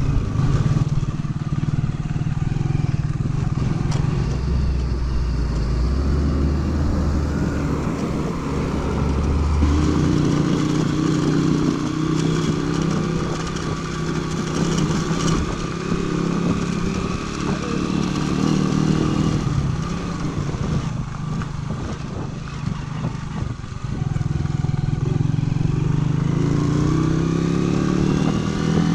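Senke motorcycle engine running under way, heard from the rider's seat, its pitch shifting as the throttle and gears change, then climbing near the end as the bike accelerates.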